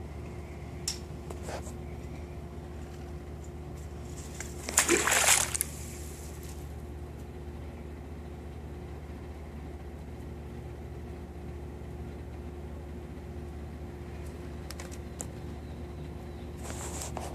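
A short splash of water about five seconds in, the loudest thing here, over a steady low hum, with a few faint clicks near the start.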